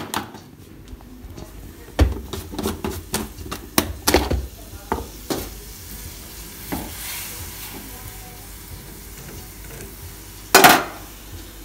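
A metal fork clicking and scraping against an aluminium frying pan as a block of Maggi instant noodles is stirred and pressed in a little simmering liquid, with a faint sizzle between the clicks. A single loud knock near the end.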